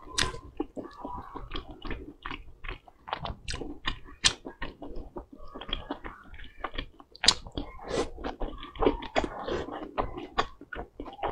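A person chewing and biting oily food soaked in chili oil, close to the microphone, with many quick wet mouth clicks and smacks.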